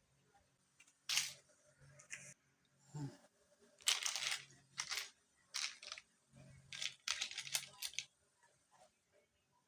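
A series of short rustling, crinkling sounds from something being handled, about eight of them at irregular spacing, over a faint low hum.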